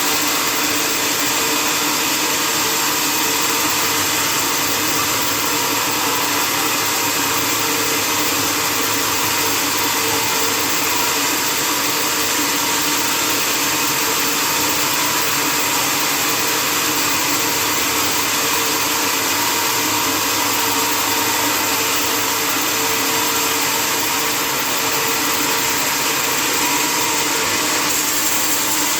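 Sawmill machinery running steadily, a constant mechanical drone with hiss.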